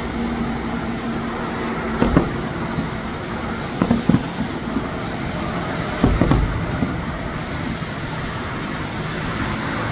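Fireworks shells bursting in deep booms about two, four and six seconds in, the later ones in quick pairs, over a steady background din.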